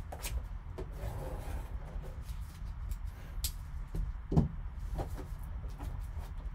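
Gloved hands handling a sealed cardboard card box: light rubbing and scattered taps, with one dull knock about four seconds in as the box meets the table, over a low steady hum.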